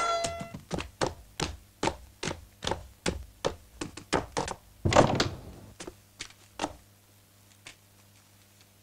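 Heavy boots stepping on a wooden floor in a steady tread of two or three steps a second. There is a louder thud about five seconds in, and the steps stop at about seven seconds.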